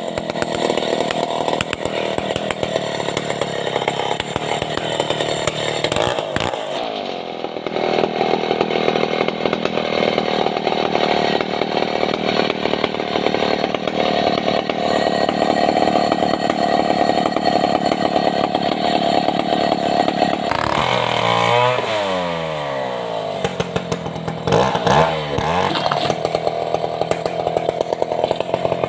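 Stihl 070 two-stroke chainsaw running near full throttle as it rips lengthwise through a sengon log. The revs drop and climb again about six seconds in, and twice more between about 20 and 25 seconds in.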